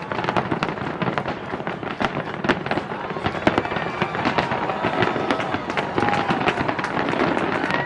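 Fireworks display: a rapid, unbroken string of bangs and crackles, several a second.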